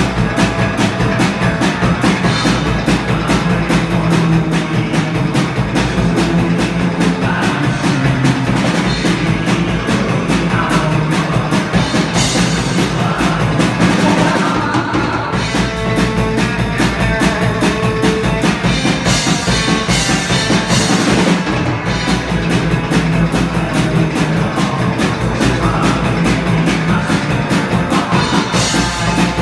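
Psychobilly band playing live: drum kit keeping a fast, steady beat under electric guitar and bass, loud and dense.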